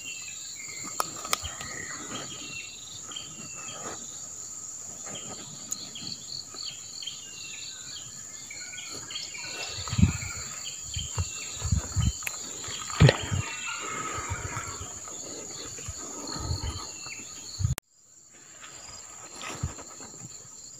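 Insects trilling and buzzing steadily at a high pitch, with small bird-like chirps in the first half. From about ten seconds in, a run of dull knocks and bumps from fishing gear being handled.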